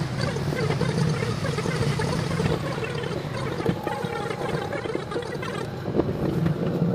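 Running noise inside the cab of a JR West 201 series electric train, played back at ten times speed so it comes out as a dense, fluttering rush over a steady low hum.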